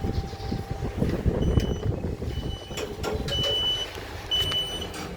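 Lift's electronic buzzer sounding short, steady high beeps, each about half a second long with gaps between, over a low rumble of movement and a few sharp clicks.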